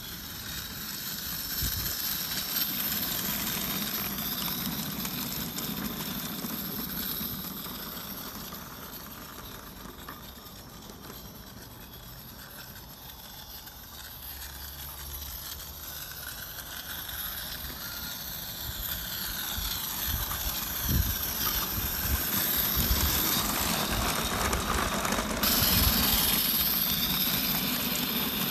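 A 16mm-scale live-steam Roundhouse D-class Garratt running, its exhaust chuffing through a Summerlands Chuffer exhaust enhancer, with steam hissing. It fades for a while in the middle, then grows louder again as the engine comes close.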